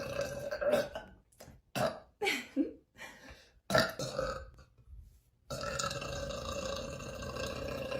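A young woman burping, with loud, short burps about two and about four seconds in and near-silent gaps between them.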